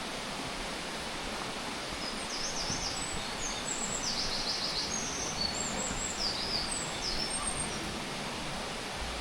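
A songbird singing a long, fast, tumbling song of high chirps and trills lasting about five seconds, starting about two seconds in, over a steady rushing hiss.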